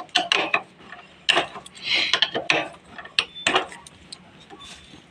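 A wrench undoing the four 10 mm bolts on the clutch pressure plate of a Hero Splendor Plus engine: short runs of metallic clicking and clinking, thinning out in the last second or so.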